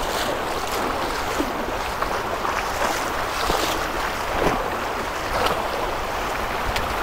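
Swift floodwater rushing in a steady wash, with a few faint splashes.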